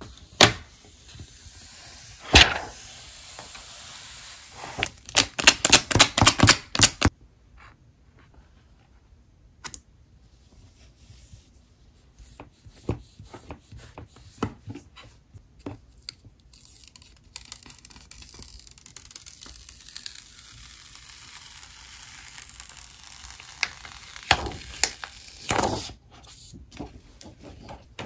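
Plastic backing film being peeled off a tablet screen protector, with sharp crackling and tearing sounds: two single crackles near the start, a fast run of about a dozen around five to seven seconds in, then quieter scattered ticks of the film and stickers being handled, and another burst of crackling near the end.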